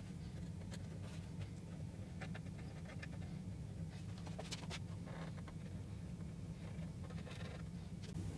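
Faint scratching and light clicks of a pen marking a template on a rear spoiler, with the template and spoiler being handled, over a steady low hum.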